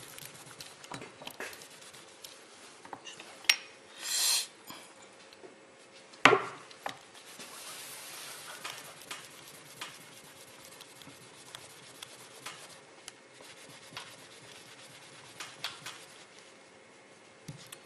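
Hand polishing of a small metal-putty repair with a cloth: soft rubbing with scattered light clicks and scrapes. A brief hissing swipe comes about four seconds in, and a sharp knock about six seconds in.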